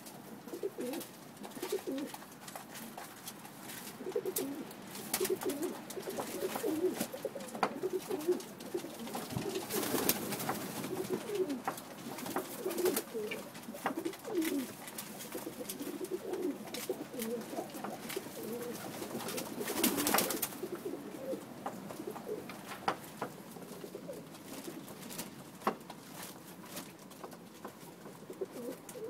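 A flock of Pakistani high flyer pigeons cooing continually, many overlapping low calls, with scattered sharp clicks of beaks pecking grain from a trough. Two louder bursts of noise stand out, about a third and two-thirds of the way in.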